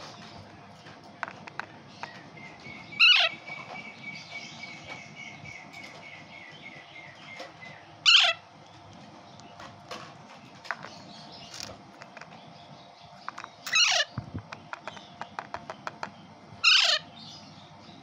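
Alexandrine parakeet chick giving four loud, short screeching calls, each falling in pitch, with softer chirps and small ticks in between: food-begging calls at hand-feeding time.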